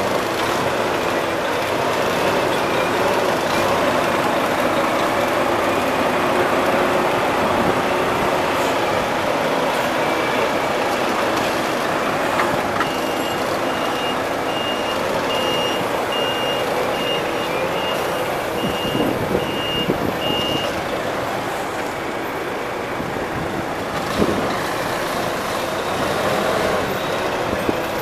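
Diesel engine of a double-decker touring coach running at low speed, close by, as the coach squeezes through a tight turn. About halfway through, a reversing alarm beeps at a steady rate for several seconds, then stops.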